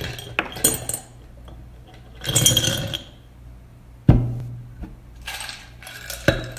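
Ice cubes poured into a glass mason-jar mug, clattering and clinking against the glass. There is a dense rattling spill about two seconds in, with sharp single knocks near four and six seconds.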